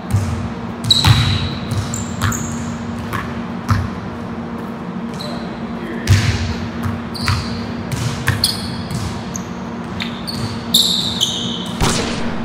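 Basketball bouncing on a hardwood gym floor at an irregular pace, each bounce echoing in the large hall, mixed with short high sneaker squeaks. A steady low hum runs underneath.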